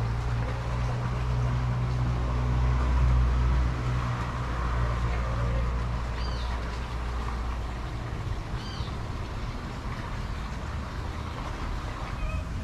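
A low, steady mechanical hum, loudest over the first few seconds and then easing off, with two short high bird chirps about six and nine seconds in.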